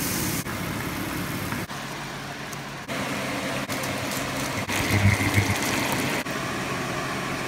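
Pumpkin pieces cooking in a frying pan: a steady sizzling hiss over a low hum, its level jumping abruptly every second or so.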